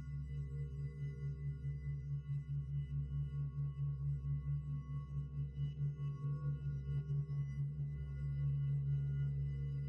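Ambient background music: a low sustained drone that pulses evenly several times a second, with faint high held tones above it.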